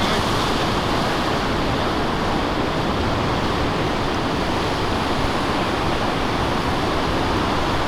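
Steady rush of surf, waves breaking and washing over a river bar.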